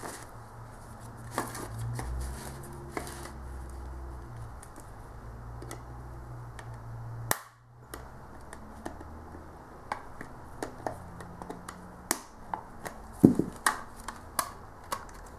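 Plastic snap-fit clips of a Seagate Backup Plus external drive enclosure clicking and snapping as the case is pried apart with a knife. Scattered sharp clicks over a low rumble of handling, coming thicker and louder in the last few seconds as the case comes free.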